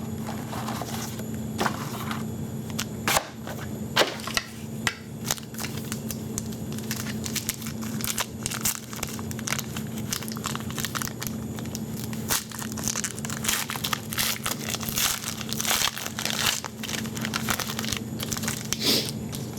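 A pack of Panini Limited hockey cards being opened by hand: the wrapper crinkles and crackles, with irregular sharp crackles and a few louder snaps, over a steady low hum.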